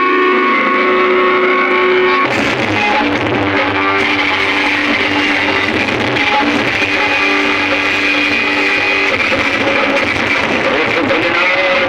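Background music led by guitar, with a change of section about two seconds in.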